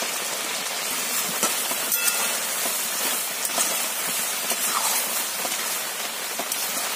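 Chicken pieces sizzling and simmering in tomato juice in a kadai, a steady hiss, while a metal spatula stirs them and clicks and scrapes against the pan now and then.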